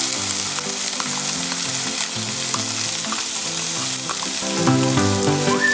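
Chopped onion sizzling as it fries in hot cooking oil in a pan, with a steady high hiss. Background music plays underneath, a little louder near the end.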